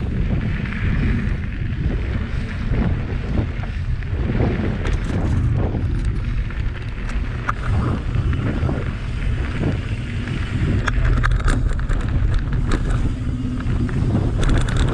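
Wind buffeting the microphone over the rumble of mountain-bike tyres rolling on a gravel and dirt trail, with scattered clicks and rattles from about five seconds in.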